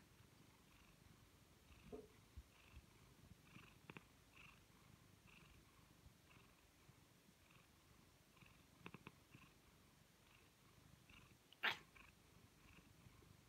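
Domestic tabby cat purring softly and steadily, with a few soft clicks about nine seconds in and one short, louder sound near the end.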